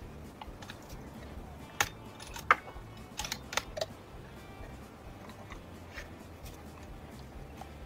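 Rifle, cartridges and gear being handled on a wooden shooting bench: a few sharp clicks and knocks, the loudest about two and a half seconds in, then only faint ticks.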